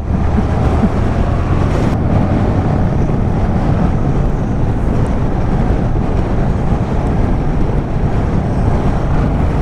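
Yamaha MT-07 motorcycle riding along, its parallel-twin engine running steadily under the rush of wind over the helmet-mounted microphone.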